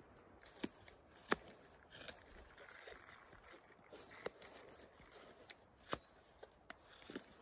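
Grohmann #4 survival knife cutting into a wooden stick, each bite of the blade a sharp snick or crack of wood: about eight cuts at irregular intervals, the loudest a little over a second in.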